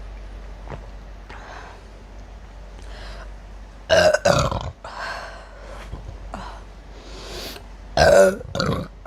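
A person burping loudly twice, about four seconds apart, after drinking mixed soda. The second burp breaks off briefly near its end.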